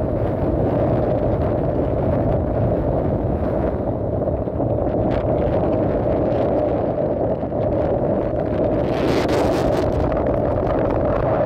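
Strong wind buffeting the microphone over rough surf breaking on the shore, with a louder, hissing rush of a breaking wave about nine seconds in.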